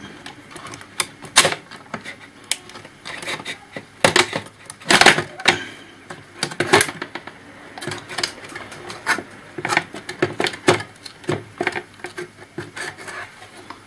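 Irregular clicks and knocks of plastic and metal laptop parts being handled and prised as a laptop's main board is worked loose from its case, with one louder clatter about five seconds in.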